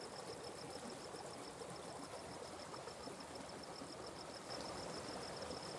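A forest stream's faint, steady rush of water, with an insect calling high above it in a fast, even pulse that goes on without a break.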